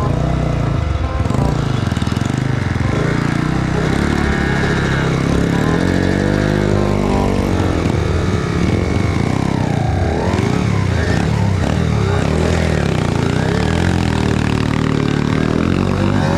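Kawasaki KX85 two-stroke dirt bike engine revving hard, its pitch rising and falling again and again as the throttle is opened and closed through mud.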